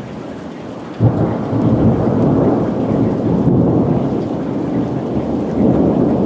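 Rain falling steadily, then about a second in a sudden clap of thunder that rolls on as a long low rumble.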